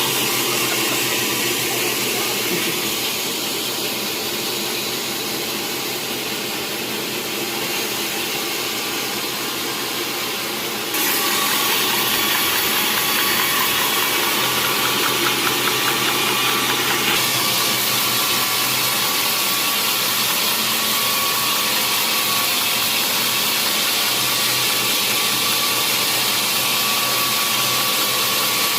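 Sawmill machinery running steadily with a dense mechanical noise, which gets suddenly louder about eleven seconds in.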